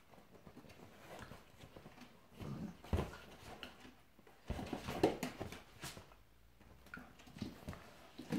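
Two dogs play-fighting: short, irregular bursts of growling and snarling amid scuffling, with the loudest burst about five seconds in.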